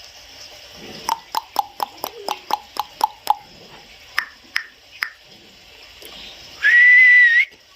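A quick run of sharp tongue clicks, about five a second, then three slower clicks, then one short, steady, high whistle near the end, which is the loudest sound.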